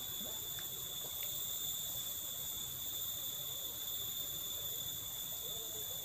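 Steady, high-pitched insect drone: one unchanging shrill tone with fainter overtones above it.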